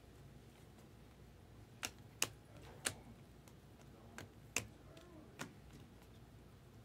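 Topps Chrome trading cards being flicked through by hand, the stiff chromium card stock giving about six short, sharp clicks at irregular intervals through the middle of the stretch over a quiet background.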